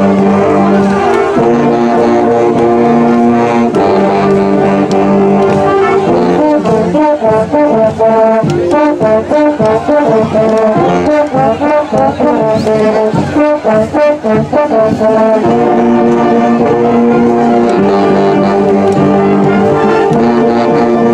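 Brass ensemble music, trombones prominent, playing long held chords, with a stretch of short, clipped notes in the middle.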